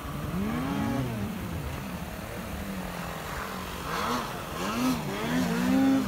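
Snowmobile engine revving, its pitch rising and falling several times, then climbing and holding higher near the end.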